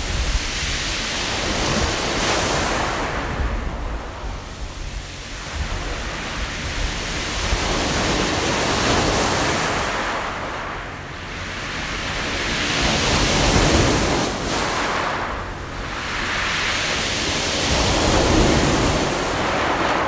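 Waves breaking and washing over a beach of round mongdol pebbles, the stones rattling and hissing under the water. The surf swells and fades about four times, with a steady low rumble beneath.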